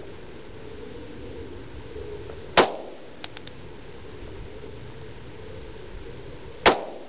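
Two pistol shots about four seconds apart from a Glock 20 SF firing 10mm Auto rounds, each a sharp crack with a short ring-out. A few faint clicks follow the first shot.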